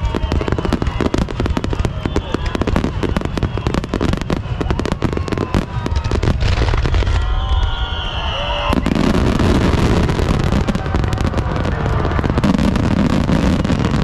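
Aerial fireworks shells bursting in a rapid barrage, a dense run of booms and cracks one on top of another, with spectators' voices underneath.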